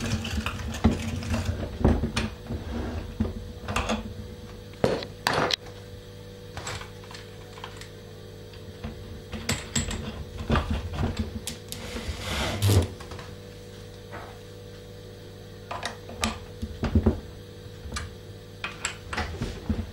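Electric drill running steadily, turning the auger of a metal hand-crank meat grinder as it grinds meat. Irregular clicks and knocks come through the hum, the loudest about twelve seconds in.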